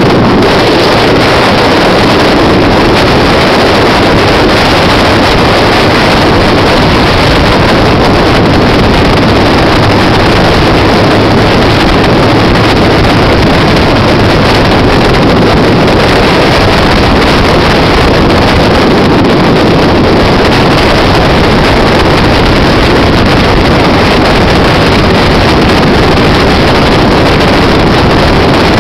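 Steady wind rush over the microphone mixed with a motorcycle engine running at road speed, loud and unchanging throughout.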